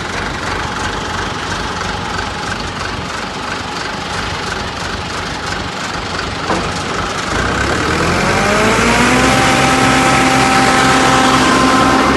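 Diesel engine of a concrete mixer pump running steadily, then revving up about seven seconds in and holding at a higher, even speed. There is a short knock just before the rev.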